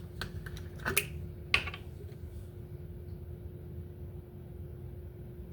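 A few sharp crinkles and clicks of aluminium foil being pressed over a baking pan, the loudest about one and one-and-a-half seconds in. After that only a steady low hum.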